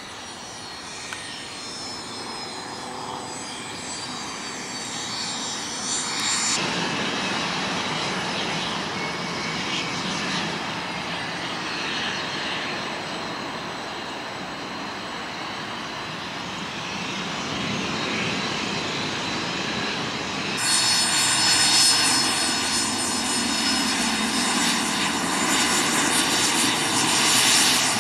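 Jet aircraft engine noise across edited shots: a falling jet whine, then the steady roar of a pair of T-38 Talon trainers' twin J85 turbojets on the runway. About 21 seconds in it cuts to the steady, louder whine of a Cirrus Vision Jet's single turbofan as it taxis.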